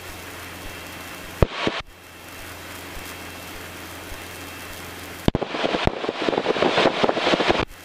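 Light aircraft radio and intercom audio: a steady hiss over the Cessna 150's low engine hum, broken by two sharp clicks about a second and a half in. About five seconds in, a click opens a burst of crackling radio static that runs for about two seconds and ends with another click, a radio transmission that comes through as noise, not words.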